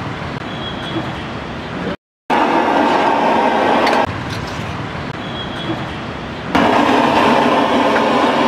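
Steady sizzling and hiss of a hot dosa griddle (tawa), with road traffic noise behind it. There is a short break of silence about two seconds in, and the sound jumps suddenly louder twice.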